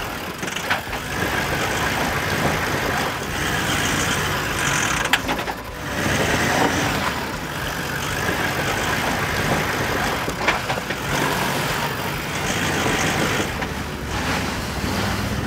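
Toyota LandCruiser 70-series 4WD engine running and working under load as the vehicle tries to climb a high rock step, struggling for traction. A few sharp knocks are heard, the clearest about five seconds in.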